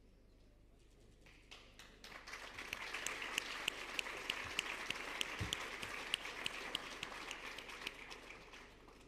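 Audience applauding. It builds from about a second in, holds, and fades away near the end, with sharp single claps close by standing out above the rest.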